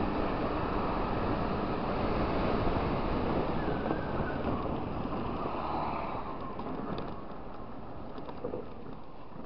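Wind rushing over the microphone of a moving motor scooter, mixed with its engine and tyre noise. The noise dies down over the last few seconds as the scooter slows towards a crossing.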